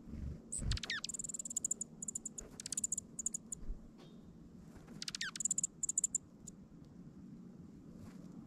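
A small songbird calling twice, about four seconds apart. Each call is a quick note sweeping downward from very high, followed by a rapid run of high ticks.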